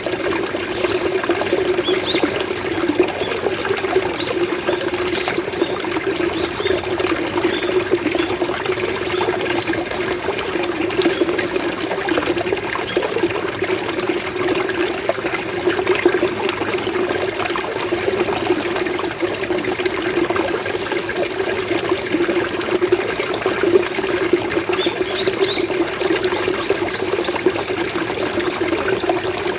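Running water gurgling and burbling steadily. Faint short bird calls come a few times, mostly in the first few seconds and again near the end.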